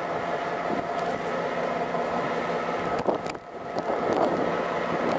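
Dubbed-in sound effect of a diesel locomotive running, a steady engine hum. About three seconds in it drops out briefly and comes back.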